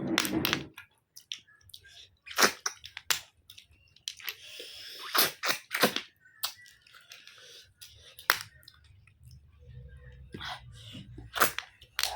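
Eating cooked snails up close: chewing and sucking, with a string of sharp clicks and cracks, and a short hissing slurp about four seconds in.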